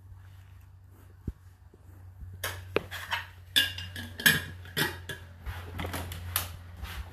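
Washed dishes and cutlery clattering and clinking as they are handled, in irregular knocks starting about two seconds in, over a steady low hum.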